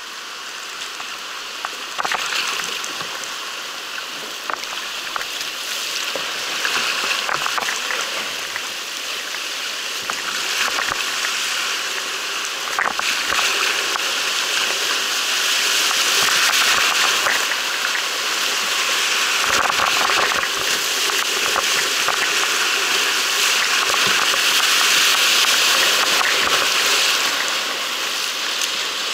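Shallow whitewater rapids rushing over rocks close around a canoe, the rush growing louder about halfway through. Scattered sharp knocks sound through it.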